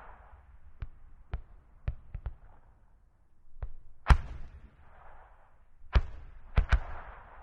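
81 mm medium mortar firing: a string of sharp reports of varying strength, several fainter ones in the first few seconds, a loud one about four seconds in and a close loud pair near the end, each followed by a rolling echo.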